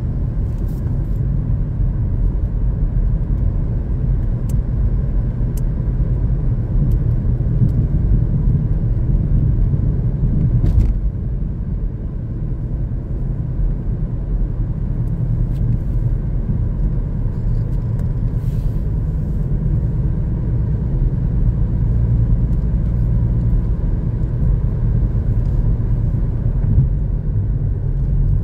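Car driving at road speed: a steady low rumble of tyres and engine.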